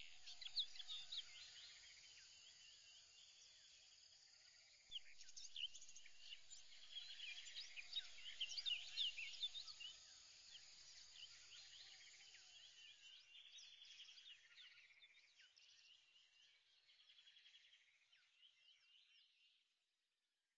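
Faint chorus of birds chirping, many short quick calls overlapping, growing louder about five seconds in and then slowly fading out to silence near the end.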